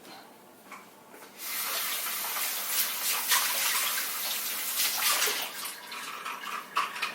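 Kitchen faucet running, with water splashing over a coffee maker part being rinsed under it. The water starts about a second and a half in and tapers off near the end.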